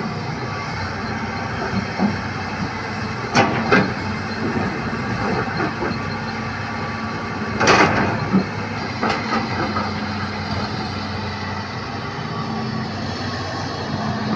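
Hitachi hydraulic excavator's diesel engine running steadily while loading soil into a dump truck, with sharp knocks and clanks: two about three and a half seconds in, and the loudest, a longer clatter, near the middle.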